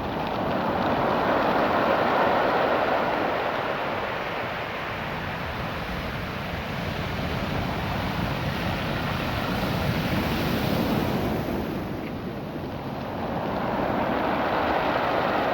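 Ocean surf washing up and back over a beach of small rounded stones, the rushing water mixed with the stones' own sound. The wash swells about a second in, eases through the middle, and swells again near the end.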